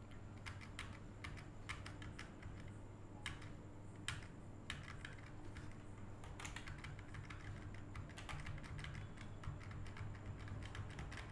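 Computer keyboard keys being pressed now and then, faint irregular clicks such as Caps Lock and arrow-key taps, over a steady low hum.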